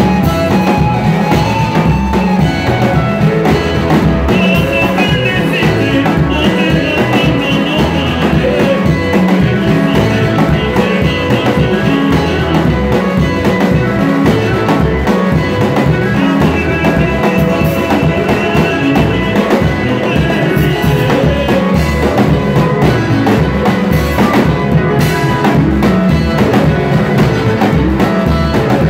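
Live band playing a sebene, the fast dance section of Congolese rumba: a drum kit keeps a steady driving beat under electric guitar lines.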